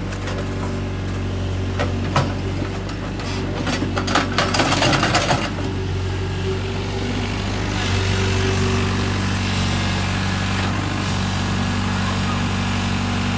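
Kobelco excavator's diesel engine running steadily. A quick run of sharp knocks and clatter comes between about two and five seconds in. The engine grows louder about eight seconds in.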